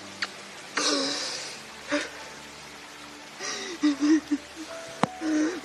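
A woman crying, with a gasping breath about a second in and short broken sobbing cries later on.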